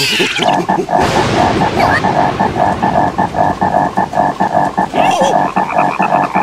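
Cartoon frog croaking in a fast, steady rhythm, about five croaks a second. A sudden burst of noise about a second in fades away slowly.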